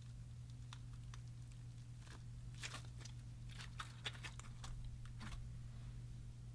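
Slime being kneaded and stretched by hand, giving off a run of sticky clicks and small pops, busiest in the middle of the stretch, over a steady low hum.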